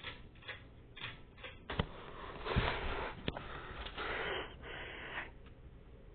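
Several light clicks, then a few breathy sniffs and breaths close to the microphone, over a faint steady low hum.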